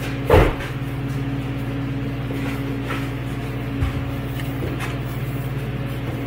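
A steady low machine hum. A short loud knock comes about half a second in, and a softer thump about four seconds in.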